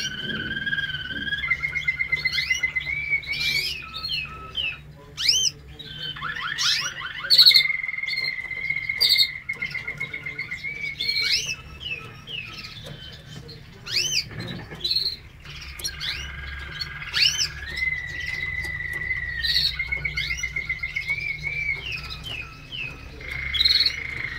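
Parisian frill canaries singing: long held whistles, fast rolling trills and quick rising chirps running one into the next, over a faint low hum.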